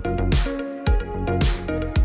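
Background music with a steady electronic beat: deep kick drums dropping in pitch and a bright hit about once a second, over held chords.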